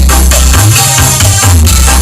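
Loud dance music played through a large carnival sound system during a sound check, with heavy deep bass notes repeating in a steady pattern under percussion.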